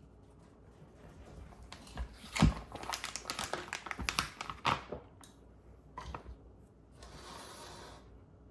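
Baking soda being measured out and added to a mixing bowl: crinkling and rustling of its packaging with scattered light taps, then a soft steady hiss near the end.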